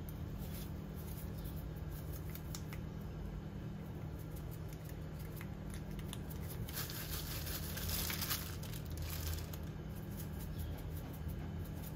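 Spice shaker shaken over raw chicken breasts: scattered light clicks and rattles of the shaker and its cap, with a denser spell of shaking about seven to eight seconds in. A steady low hum runs underneath.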